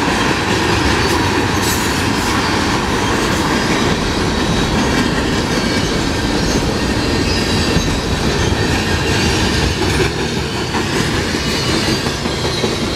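Freight cars of a passing freight train (tank cars, boxcars and a covered hopper) rolling by on steel wheels, a continuous rolling noise on the rails. It eases slightly in the last few seconds as the end of the train goes past.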